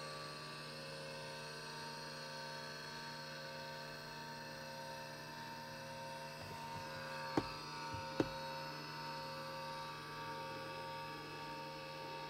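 Steady hum with several held tones from the powered-up cockpit of a Beech Duke, and two short clicks a little under a second apart a little past halfway.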